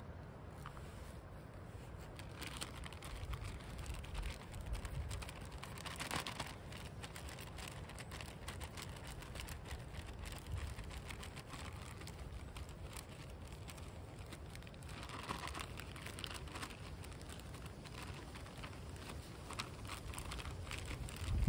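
Plastic food pouches and a zip bag crinkling and rustling as they are opened and handled, in short spells a few seconds apart, over a low steady rumble.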